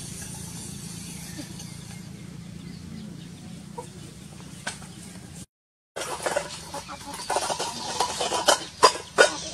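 A chicken clucking, with several loud sharp calls and scuffling clicks near the end. Before that, a steady low hum, and the sound drops out briefly about halfway through.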